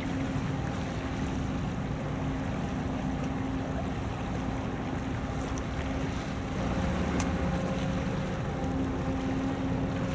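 Steady drone of a ship's engine with a few even, held tones, over a haze of wind on the microphone and water. The drone grows slightly louder about two-thirds of the way through.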